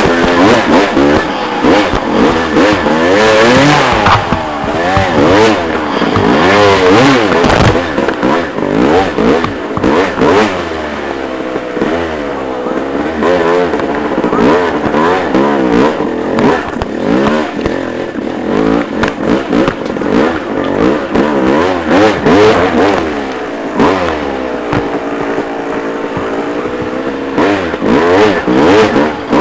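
Dirt bike engine revving up and down constantly under changing throttle while riding over rough, rocky ground, with frequent knocks and clatter from the bike.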